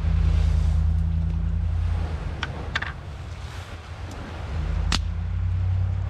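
A low rumble swells and fades twice, with a few sharp plastic clicks about halfway through as the lid of a batter container is handled and opened.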